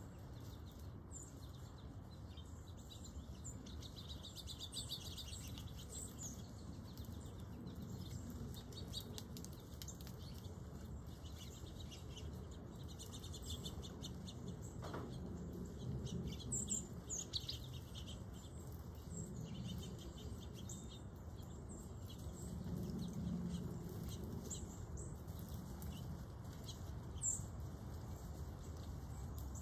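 Wild birds chirping: scattered short, high calls come and go throughout, over a steady low rumble.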